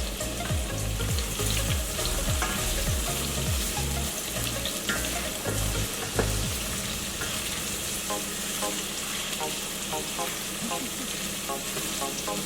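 Onions, garlic and pepper sizzling steadily in hot coconut oil in a pot as they are stirred, with small clicks from the utensil. A low rumble runs underneath for the first half and stops about six seconds in.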